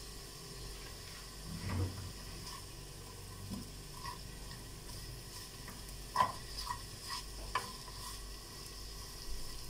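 Julienned carrot sticks sautéing in a little oil in a non-stick frying pan, with a faint, steady sizzle. A wooden spoon stirring them scrapes and taps against the pan a few times.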